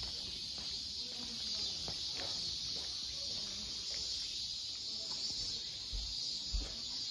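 Cicada chorus buzzing steadily and high-pitched, with a couple of low thumps near the end.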